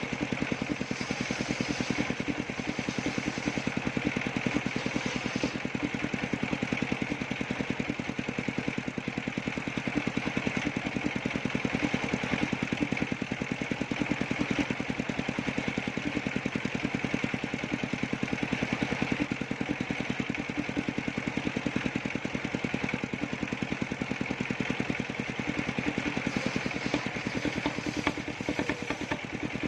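The engine of a circular-saw sawmill rig running steadily, with a fast, even firing pulse and no change in speed.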